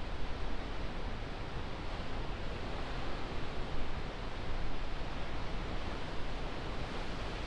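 Steady outdoor rush of wind and distant surf, with wind buffeting the microphone as an uneven low rumble.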